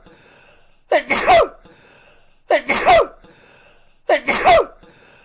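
A man sneezing three times, the identical sneeze repeated about every 1.6 seconds. Each sneeze is a brief lead-in, then a louder burst with a falling pitch.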